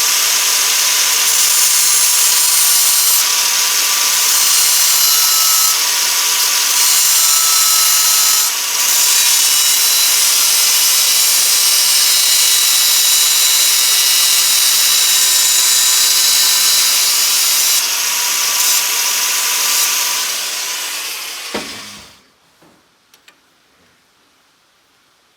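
A high-pitched power tool running steadily and loudly for about twenty seconds, then stopping.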